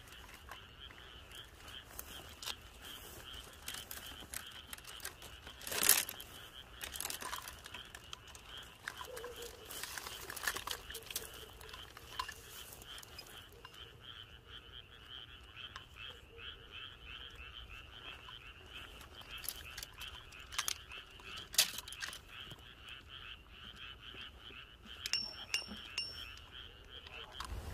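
Faint, steady pulsing chorus of frogs calling, with a few sharp clicks, the loudest about six seconds in.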